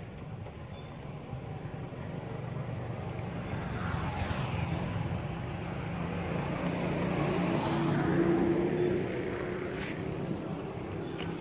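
A motor vehicle passing on the road: its engine hum grows steadily louder, peaks about eight seconds in, then fades away.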